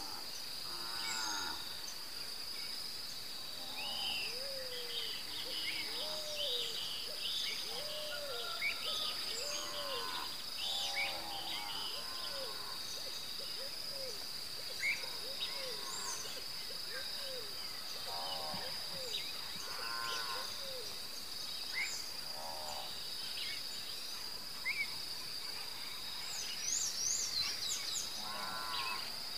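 Night ambience: a steady high-pitched insect drone, with many short animal calls scattered over it, some low with a rise and fall, others higher chirps.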